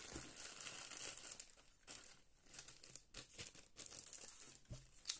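Thin clear plastic bag crinkling and rustling as it is handled and opened, an irregular run of small crackles.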